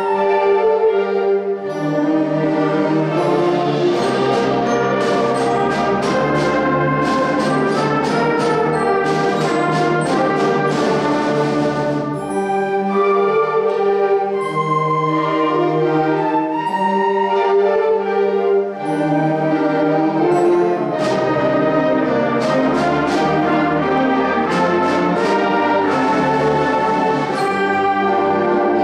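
Eighth-grade concert band playing a full wind-band piece: sustained brass and woodwind chords over regular percussion strokes, with brief dips in the texture about twelve and nineteen seconds in.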